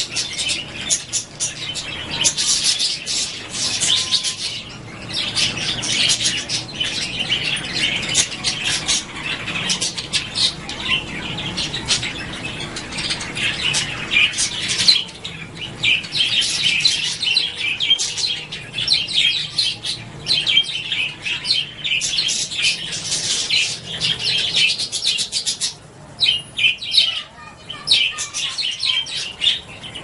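Pet budgerigars chattering: a dense, rapid stream of high chirps that keeps going with only a brief drop-off near the end.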